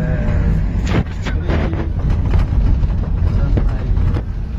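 Low, steady rumble of a minibus's engine and tyres heard from inside the cabin, with a few sharp knocks and rattles from about a second in. Faint passengers' voices are mixed in.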